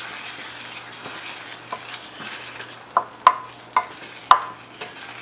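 A wooden spatula stirs ground coconut paste into masala frying in oil in a stainless steel kadai: a steady sizzle and scraping, with about five sharp knocks of the spatula against the pan in the second half.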